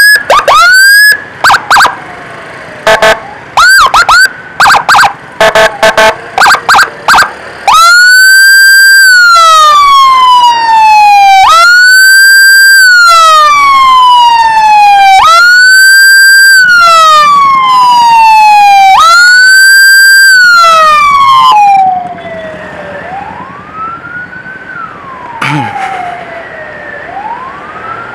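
Electronic emergency siren, very loud. It starts with a string of short, quick chirps, then wails in a pattern that jumps up sharply and slides slowly down, about every four seconds. Near the end it drops away and a fainter siren keeps rising and falling.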